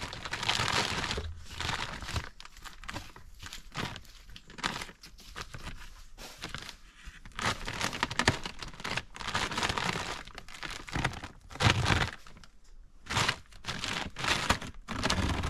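Irregular rustling and crinkling in short noisy bursts, close-up handling noise of gear being worked with by hand.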